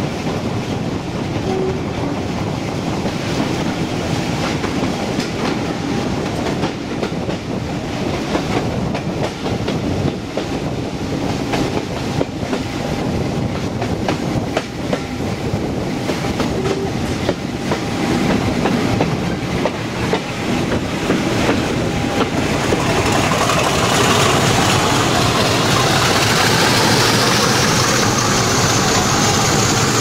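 Pair of English Electric Class 50 diesel locomotives hauling a train at speed, heard from just behind them: steady running with wheels clicking over the rail joints. From about two-thirds of the way through, a high whine climbs in pitch and the sound grows louder.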